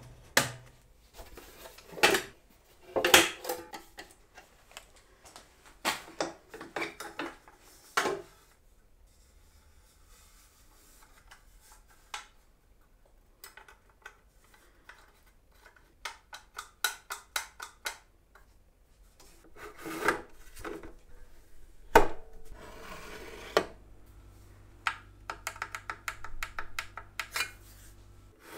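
Handling of a small bandsaw's metal fence and fittings: scattered clicks, knocks and short scrapes of metal sliding and rubbing, with a sharp knock a little over 20 seconds in. A low steady hum joins in the last few seconds.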